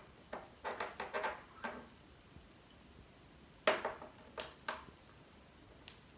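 Candle jars being set down and shifted on a mirrored metal tray: a series of light clinks and taps. The loudest clink comes a little past the middle.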